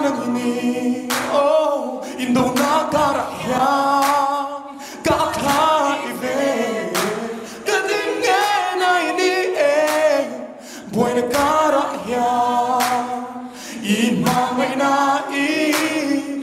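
A man singing a slow Mizo song without accompaniment into a microphone over a hall PA, his held notes wavering with vibrato between short breaths.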